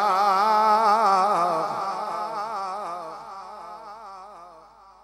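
A man's voice in Quranic recitation (tilawat), holding a long, ornamented note whose pitch wavers up and down. The note then trails off over the last three seconds.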